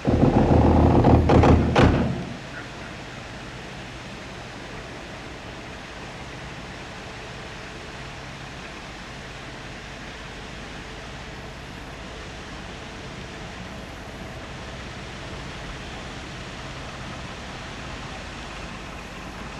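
A loud rumble with two knocks in it for about the first two seconds, then steady outdoor wind and water noise with the faint low hum of the narrowboat's engine under way.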